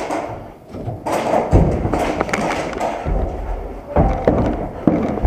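A run of heavy low thuds, about four of them, with rustling and clattering clicks in between.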